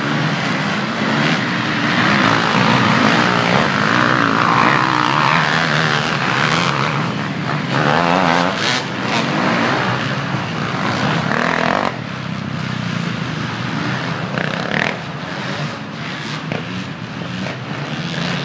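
Enduro dirt bike engine revving hard as the bike rides past, its pitch rising and falling with the throttle. It is loudest for the first twelve seconds, then drops away to a fainter running sound.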